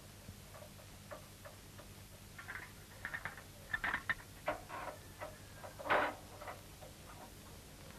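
Light metallic clicks and clinks from a finger-bar mower being fitted to a tractor, irregular and loudest about six seconds in, over a faint steady hum.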